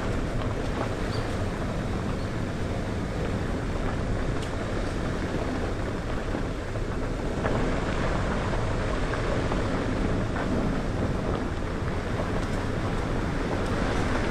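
Steady engine and road noise of a vehicle driving.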